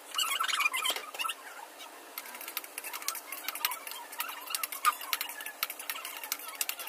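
Stir-frying in a wok: a metal spoon scraping and clicking against the pan in quick, irregular ticks as the vegetables are turned. A few high squeaky calls come in the first second.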